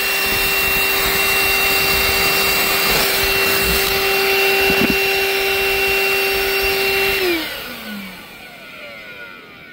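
Cordless DeWalt shop vacuum running steadily with a motor whine and suction rush, catching fiberglass shavings. It is switched off about seven seconds in and winds down, its pitch falling.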